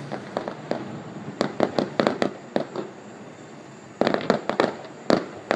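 Aerial fireworks going off: a quick series of sharp bangs and cracks from bursting shells and crackling stars. They come in two clusters with a lull of about a second and a half between.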